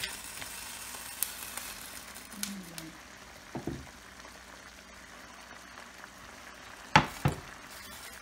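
Mussels simmering in white wine and tomato in a frying pan, a steady sizzling hiss with a few light taps in the first seconds. Two sharp knocks about seven seconds in, the loudest sounds, come as the pan's glass lid is picked up.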